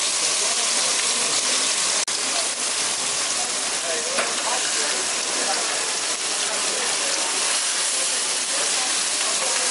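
Fish sizzling on a hot grill: a steady, dense hiss, with faint voices behind it. The hiss cuts out for an instant about two seconds in.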